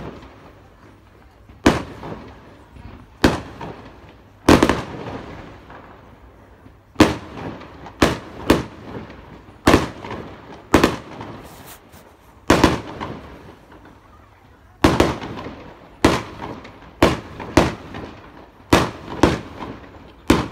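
Aerial fireworks exploding: an irregular string of about eighteen sharp bangs, some close together in pairs, others a couple of seconds apart, each trailing off in an echo.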